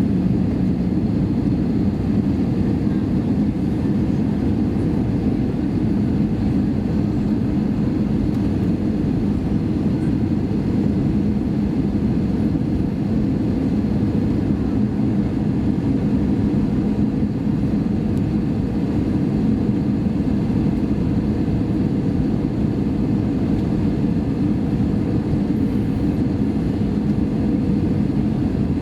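Steady engine and airflow noise inside the cabin of an Airbus A320 airliner, a deep even rush with a steady low hum running through it.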